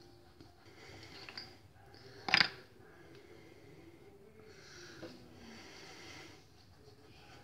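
Soft rustling of hands rubbing over skin and working a skincare product between the fingers and palms, with one short, sharp noise about two seconds in.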